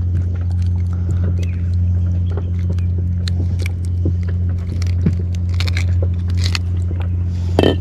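A steady low engine drone, with scattered light clicks and taps of handling on the boat, and a louder rustle near the end.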